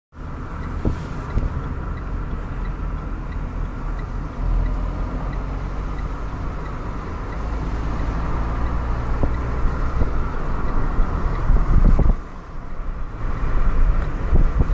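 Small car driving along a town street: steady engine and tyre road noise. Faint regular ticking, about three a second, runs through the first several seconds. The low rumble dips briefly about twelve seconds in.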